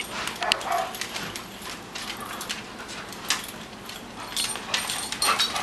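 Dogs moving about on a tiled floor: scattered clicks and scuffles of claws and paws.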